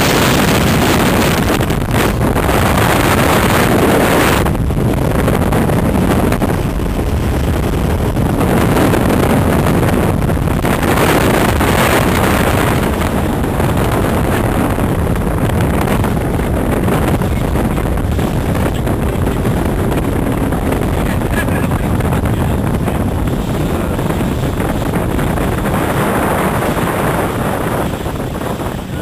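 Motorboat running at speed: loud engine and rushing water against the hull, with wind buffeting the microphone in gusts.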